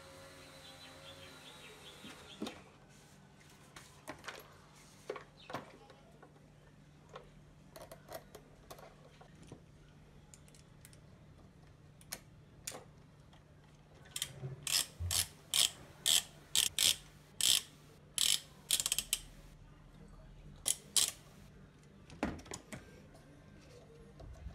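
Hand socket ratchet clicking as a bolt is turned under the bonnet: scattered clicks and knocks of tool and parts at first, then past the middle a run of about fifteen quick ratcheting strokes.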